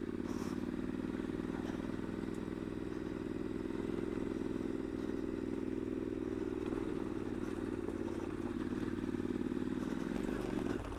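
2015 Triumph Scrambler's air-cooled parallel-twin engine running steadily under the rider, easing slightly near the end.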